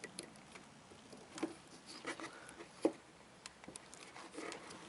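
Irregular small clicks, taps and rustles of hands working at the back of a refrigerator, plugging the ice maker's solenoid valve connector back in.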